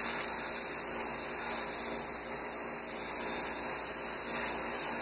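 Airbrush spraying paint in a steady hiss, shading a fin on a largemouth bass skin mount.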